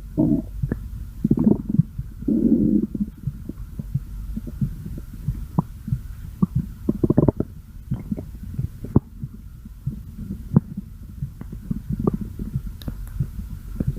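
Human stomach growling: irregular low gurgles and rumbles with many short pops. Louder bouts come in the first few seconds and again around seven seconds in.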